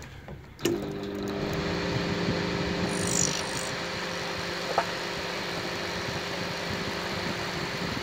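Opened-up Gorenje microwave oven switched on: a click about half a second in, then a steady mains hum from its high-voltage transformer over the cooling fan's running noise, with a brief high squeal about three seconds in. The oven smells and heats weakly, which the repairer puts down to a heavy load on the transformer's secondary winding.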